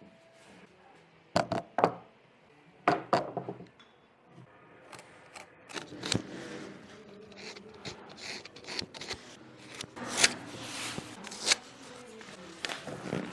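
Woodworking hand-tool sounds on wood: a few sharp knocks in the first three seconds, then a run of scraping broken by small clicks.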